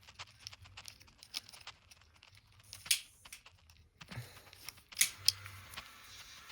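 Small plastic clicks and fiddling as a microSD card is pushed into the side card slot of a DJI Osmo Pocket 3 gimbal camera, with a few sharper clicks about three seconds and five seconds in.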